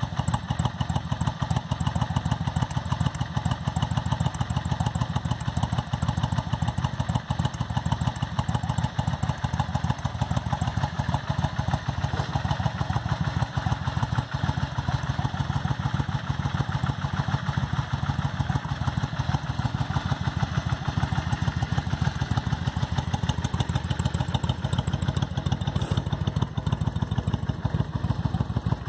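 Yamaha V Star 650 Custom's air-cooled V-twin engine idling steadily.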